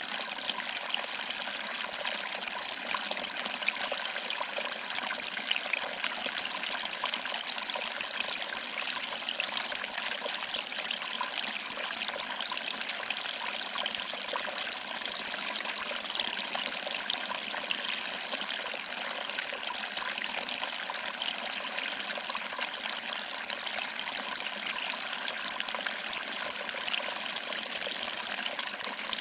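Small waterfall: water trickling and splashing over rocks into a pool in a steady, even rush with no low rumble.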